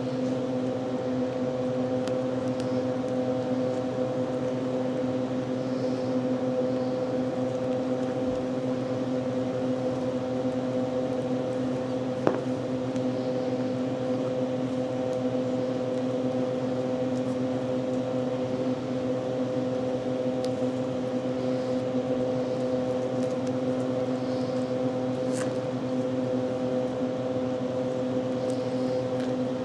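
A steady hum with several even pitches, unchanging in pitch and level, and one short click about twelve seconds in.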